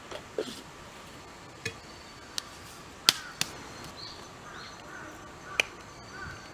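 Dry twigs cracking: a handful of sharp, irregular snaps, the loudest about three seconds in.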